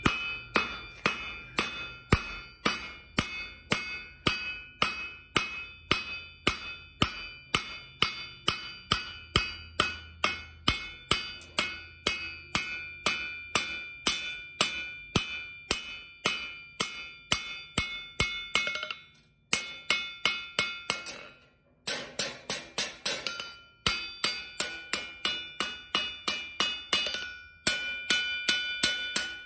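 Hand hammer striking a hot aluminum bar on a steel anvil, drawing out a taper, at a steady pace of about two and a half blows a second; the anvil rings with clear high tones after each blow. The hammering breaks off briefly a few times past the middle, then resumes.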